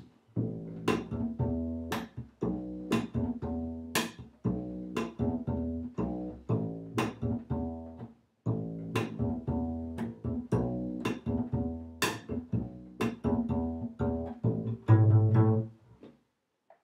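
Solo bass, plucked, playing a cha-cha groove: a repeating line of short notes with sharp attacks, about one a second. It breaks off briefly a little past the middle, and a louder low note comes shortly before the end.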